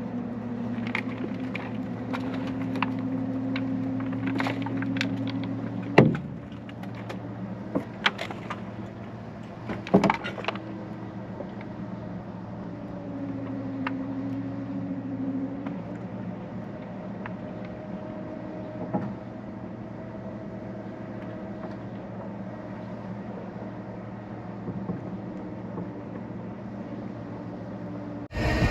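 Recovery truck's engine running steadily during a winch pull on a rolled-over Jeep, with scattered sharp clicks and two louder knocks about six and ten seconds in.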